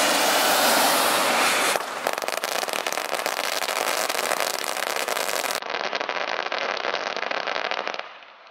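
A steady rushing noise, then about two seconds in a string of firecrackers goes off on the ground: a dense, rapid run of pops lasting about six seconds before it dies away.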